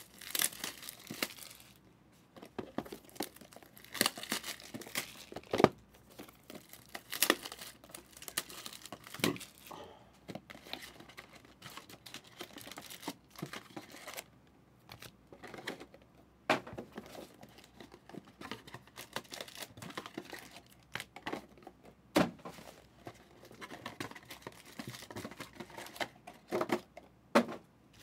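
Plastic shrink-wrap being torn off and crinkled, and cardboard trading-card boxes being opened, with sealed foil card packs handled and stacked: irregular crackles, rustles and sharp snaps.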